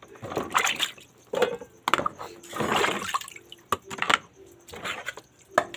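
Water splashing and sloshing in a plastic washing tub as dishes and utensils are moved and scrubbed by hand: a series of separate splashes and drips, with a few light clicks of utensils against the tub.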